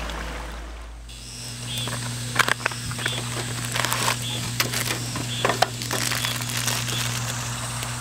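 Background music fading out, then a steady low hum with scattered clicks, knocks and crinkling, as of objects being handled close by.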